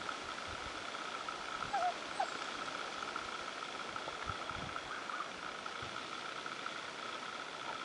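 Dusk chorus of calling night animals: a steady, fast-pulsing high trill from many callers at once. A few short squeaky calls come about two seconds in.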